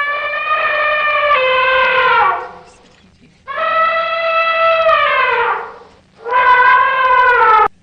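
Elephant trumpeting: three long, loud, horn-like calls, each about two seconds, with the pitch sliding down as each one ends.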